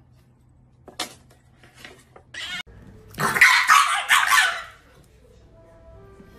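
A French bulldog gives a short outburst of harsh, snarling barks at its food bowl, lasting about a second and a half past the middle. Before it there are a couple of faint knocks.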